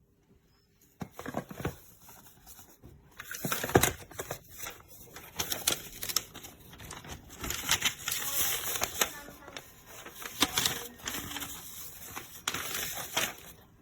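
Close handling noise: irregular rustling and clicks, with one sharper click about four seconds in.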